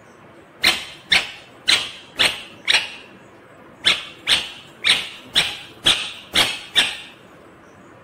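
Indian ringneck parakeet calling in quick series of short, sharp calls, about two a second: five in a row, a pause of about a second, then seven more.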